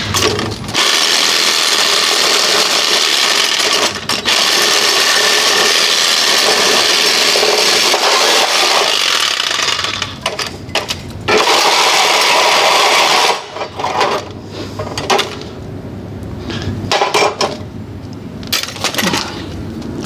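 A power tool cutting through metal in two long runs while an AC condensing unit is dismantled, followed by pieces of metal clanking and clattering in the last several seconds.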